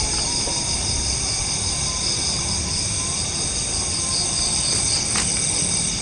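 Night chorus of crickets and other insects: several steady, high, unbroken trills over a low rumble.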